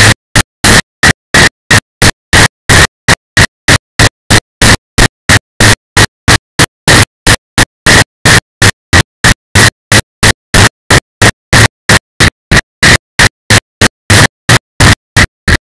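Loud, distorted noise chopped into regular bursts about four times a second, each cut off by silence: a stuttering, glitching recording rather than a natural sound.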